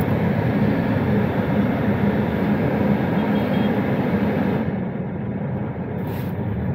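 Steady engine hum and road noise inside a Suzuki car's cabin as it drives slowly in city traffic; the sound turns duller about five seconds in.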